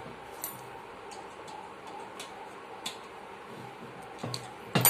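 Scattered light metallic clicks and ticks from the pivot screw and bracket of a cast-iron treadle sewing machine stand being worked with a screwdriver, the treadle pivot being set to swing freely without play. A sharper knock comes near the end.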